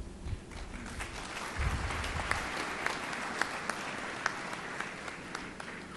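Audience applauding in a large hall, swelling about a second in and thinning out near the end.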